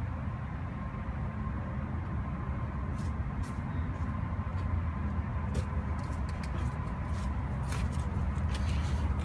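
A steady low rumble with a faint steady whine, and from about three seconds in, scattered light clicks and taps, more of them near the end, like tools or parts being handled.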